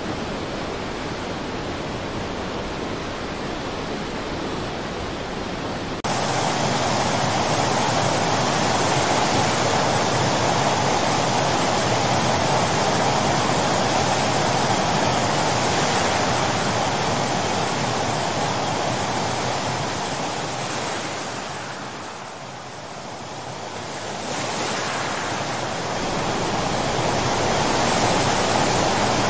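Fast-flowing floodwater rushing as a steady, dense wash of noise. It becomes louder and fuller about six seconds in, and eases briefly a few seconds before the end.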